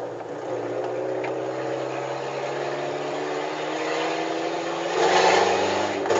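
VW Gol G4's engine and exhaust running loud on the move, with the lambda (oxygen) sensor removed from the exhaust. The note holds fairly steady with a slight rise, and there is a brief louder rush about five seconds in.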